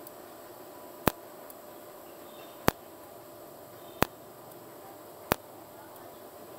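Tenya TIG250PC TIG welder in cold TIG mode firing four 30-millisecond arc pulses onto stainless steel sheet, each a single sharp crack, spaced about a second and a half apart. Each pulse cuts the arc off automatically while the trigger stays held, so the spots fuse without enough heat to warp the sheet.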